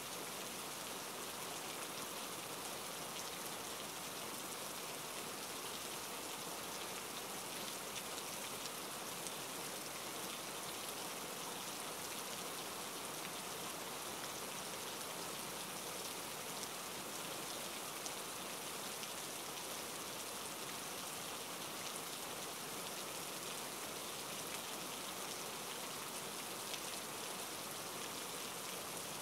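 Steady rain falling: an even hiss made of many fine drops, with no change in level throughout.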